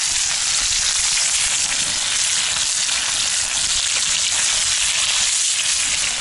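Raw meat frying in hot fat in a sadzh pan over a campfire, a loud and even sizzle just after the meat has gone in.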